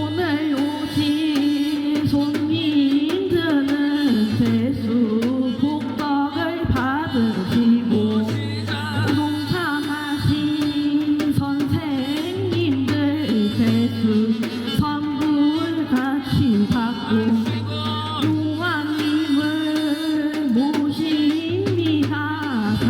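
Korean shamanic ritual (gut) music with singing: a wavering, sliding melody over a steady low drone, with drum strokes throughout.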